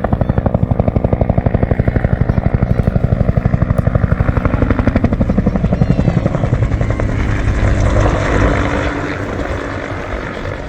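Bell UH-1H Huey helicopter's two-bladed main rotor beating rapidly and regularly, about ten beats a second. About seven seconds in the beating weakens, leaving a rushing sound.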